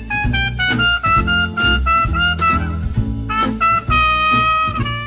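Background music: a jazzy tune with held horn-like notes over a steady bass and drum beat, fading out at the end.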